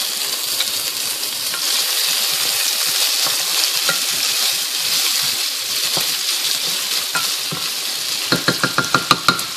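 Sliced sausage and minced garlic sizzling steadily in hot oil in a pot. Near the end comes a quick run of about eight knocks as a wooden spoon stirs against the pot.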